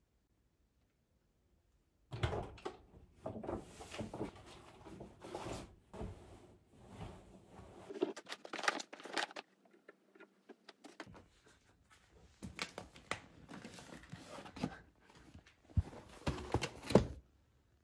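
Irregular rustling, crinkling and small knocks of things being handled, starting about two seconds in.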